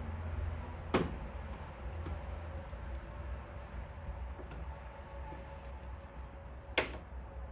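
Plastic grille trim pieces clicking as they are pried and worked on the grille: two sharp clicks, about a second in and near the end, with lighter ticks between, over a steady low hum.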